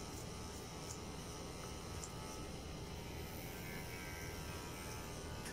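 Electric hair clipper buzzing steadily as it is run through short hair.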